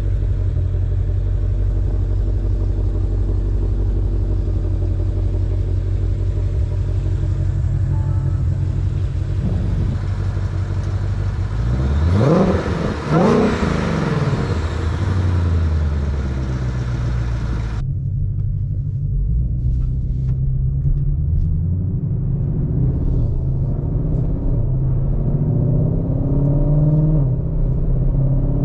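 Ford Shelby GT500's supercharged 5.2-litre V8, on its stock exhaust, idling steadily, then revved twice about twelve seconds in, the pitch sweeping up and falling back. After an abrupt cut it is heard from inside the cabin under way, the engine note rising and dropping as the car accelerates through the gears.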